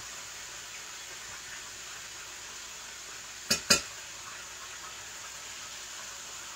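Two quick metallic clinks of cookware at the stove, a fraction of a second apart, about halfway through, over a steady low hiss.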